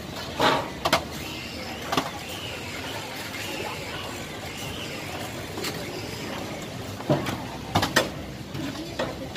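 Steady background noise of a busy street-food stall, with a few sharp knocks and clatters: two about half a second in, one at two seconds, and a cluster around seven to eight seconds.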